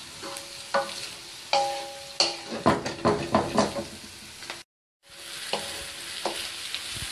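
Julienned carrots sizzling in hot oil in a metal wok while a wooden spatula stirs them, scraping and knocking against the pan; a few knocks leave the pan ringing briefly. The sound cuts out for a moment just after halfway.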